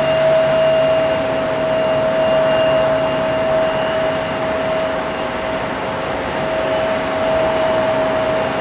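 Boeing 767-300 jet engines at takeoff power as the airliner lifts off and climbs away: a steady roar with a steady whine running through it, easing off slightly as it climbs.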